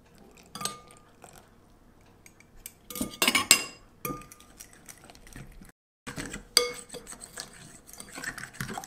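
A metal spoon and a stainless measuring cup clinking against a glass mixing bowl: a few sharp clinks with a short ring, several of them together about three seconds in. Near the end, a spoon scraping and clinking around the bowl as tempura batter is stirred.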